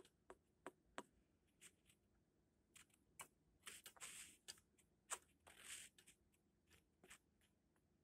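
Near silence: room tone broken by faint scattered clicks and two soft rustling hisses in the middle.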